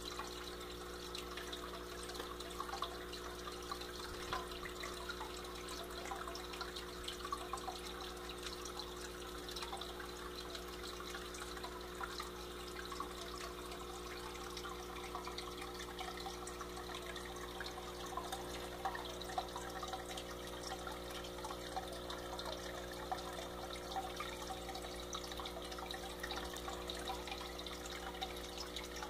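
Aquarium filter water trickling steadily into the tank, with a steady hum underneath and small scattered drips.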